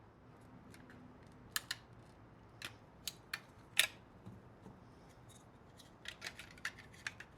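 Sharp plastic clicks and snaps as power window switches are worked out of and locked into their door switch bezels. They come singly and in pairs, the loudest about four seconds in, then a quick run of clicks near the end.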